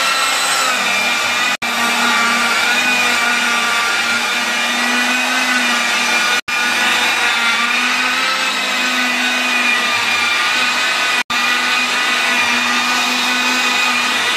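Rotary polisher with a foam pad running steadily on car paint: a continuous motor whine that wavers slightly in pitch, broken by three very short dropouts.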